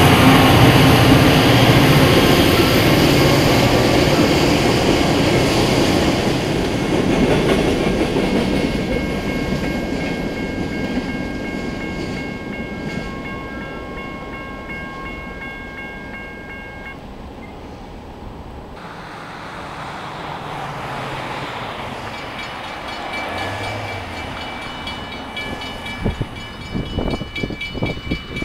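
CSX freight train rolling through a grade crossing, its rumble and wheel noise fading as it moves away. A crossing bell rings steadily over it.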